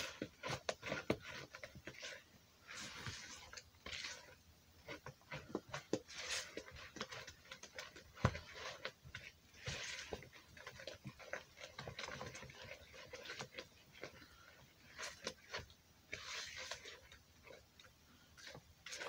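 Thick banana and rice-flour batter being stirred by hand in a plastic mixing bowl: irregular scrapes and taps of the utensil against the bowl.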